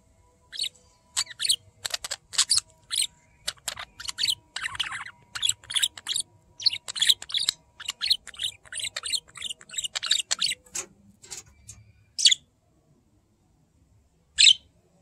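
Budgerigars chirping: a quick, busy run of short, high chirps for about ten seconds, then two lone chirps near the end.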